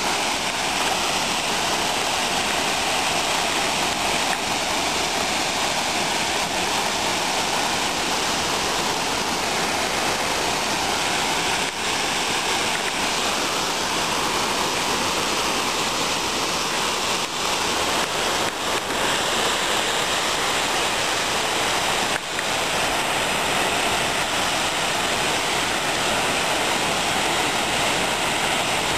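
Waterfall and creek cascades rushing steadily.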